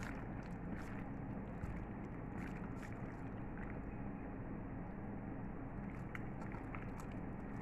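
A gloved hand squeezing and tossing marinated raw chicken pieces in a stainless steel bowl: scattered soft wet squelches and small clicks over a steady low hum.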